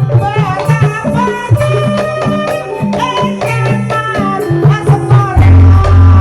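Live campursari band music with a steady beat of low drum strokes under a melody. The low end grows heavier and louder near the end.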